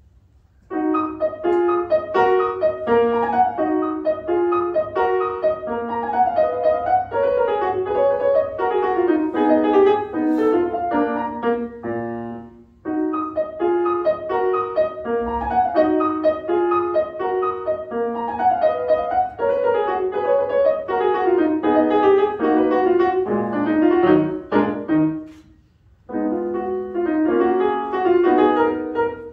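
Grand piano played solo: a classical piece in quick runs of notes, starting about a second in, with a brief pause about twelve seconds in and another near the end.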